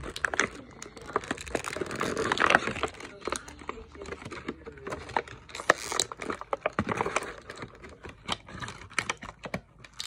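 Irregular clicking and crinkling of small Shopkins blind-pack toy packaging, a plastic toilet-roll capsule and its wrappers, being handled and turned over in the hands.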